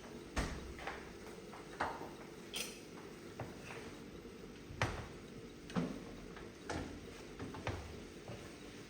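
Cookware and utensils being handled: a dozen or so scattered light knocks and clicks at irregular intervals, the strongest about five seconds in, over a steady low hum.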